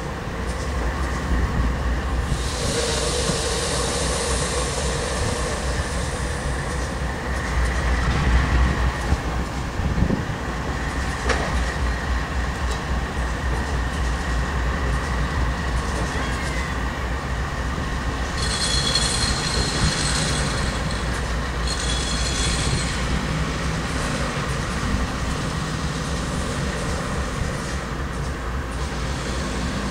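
Freight train of coal hopper cars rolling slowly on the rails, over the steady low rumble of diesel locomotives. The steel wheels squeal against the rail a few seconds in and again, higher and shriller, about two-thirds of the way through.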